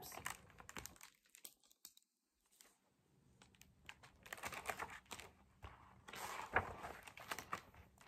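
Faint handling of a large picture book: light taps and soft paper rustling, with a page being turned in the second half.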